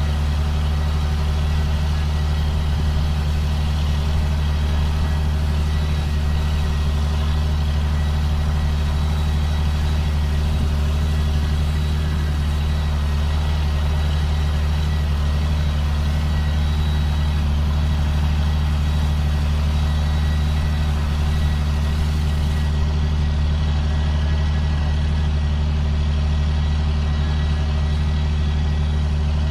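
Engine of a 2005 John Deere self-propelled sprayer running at a steady, even speed, a constant low drone.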